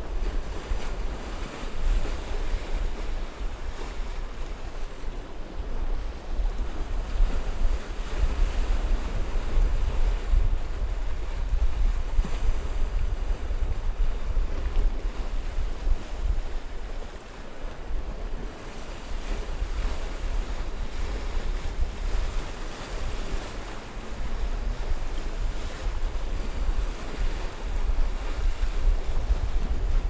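Sea waves washing and breaking over rocks in a choppy sea, a steady rushing surf with a brief lull about halfway through. Wind buffets the microphone throughout as a low, fluttering rumble.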